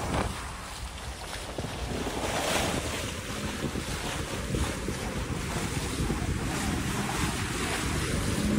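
Wind buffeting the microphone over the steady rush of choppy sea washing past a sailing catamaran under way.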